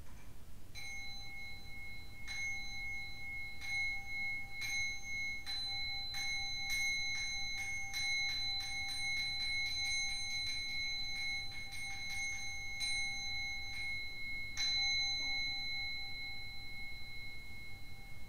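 A metal meditation bell struck over and over with a clear ringing tone. The strikes begin slowly, speed up into a fast roll, then slow again, and a last strike near the end rings out.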